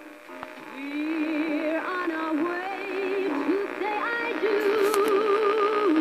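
1963 Pontiac Delco 984077 AM push-button car radio playing a music station: a singer with a wide vibrato over accompaniment, with the narrow AM sound that has little above about 4 kHz. It swells up in volume over the first second as the knob is turned.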